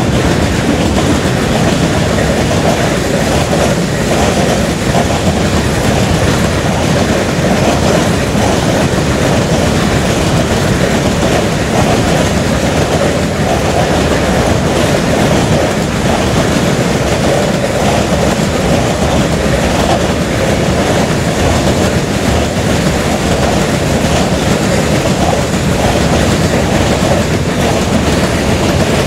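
Empty open-top freight wagons rolling past, their steel wheels on the rails making a steady, loud rolling clatter.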